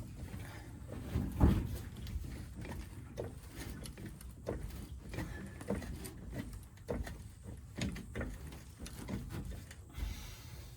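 A jack being worked by foot: a string of short mechanical knocks and clunks, about one a second, with the loudest pair about one and a half seconds in.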